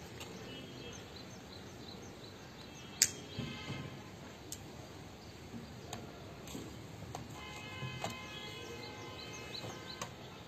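Faint background ambience: a steady low hiss with small high chirps and some faint held tones, broken by a few sharp clicks, the loudest about three seconds in.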